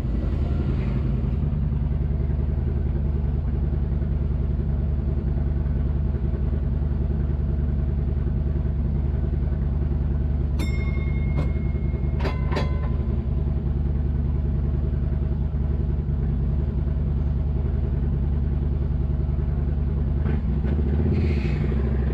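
A 1934 ex-Sydney heritage tram standing at a stop, with a steady low hum from its equipment. About halfway through come a couple of sharp clicks and a short, high, steady beep.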